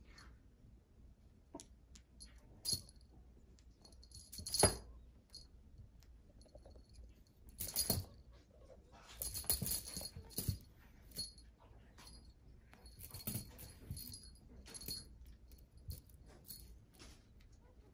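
Small bell on a spring-wire wand toy jingling in short bursts as kittens bat and pounce on it, with soft thumps and scuffs of paws on cloth; the loudest thump comes about four and a half seconds in.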